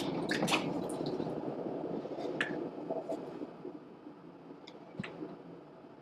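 Water dripping and squishing as hands squeeze and open up wet raw Pygora goat fiber in a wash bin, growing quieter toward the end, with one sharp tick about five seconds in.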